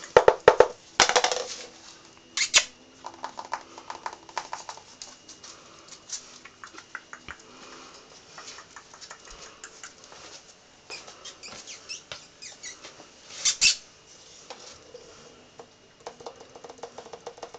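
Blue French bulldog puppy's claws tapping and scrabbling on a bare wooden floor as it moves about, with a few louder scuffles near the start and again about two-thirds of the way through.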